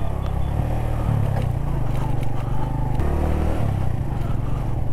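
Motorcycle engine running at low speed, its note shifting a little about one and three seconds in.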